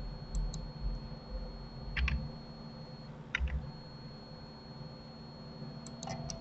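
Computer keyboard keys and mouse clicks during editing: a few single clicks, quick pairs about two and three and a half seconds in, and a short cluster near the end. A faint steady high whine and low hum run underneath.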